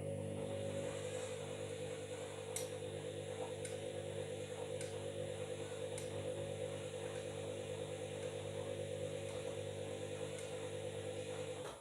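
Washing machine motor running with a steady, slightly fluttering hum and a few light clicks, cutting off suddenly near the end.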